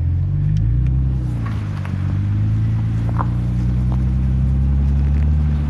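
2004 Mercedes-Benz C320's 3.2-litre V6 engine, heard from inside the cabin, running steadily as the car drives up a rough dirt track. Its pitch rises slightly about half a second in.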